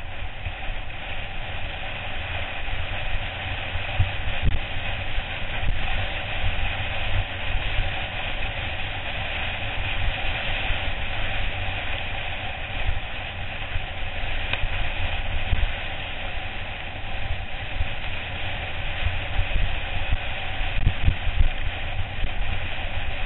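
Mountain bike rolling fast down a rough dirt track: a steady rumble and rattle over the surface with wind buffeting the microphone, and a few sharper knocks from bumps.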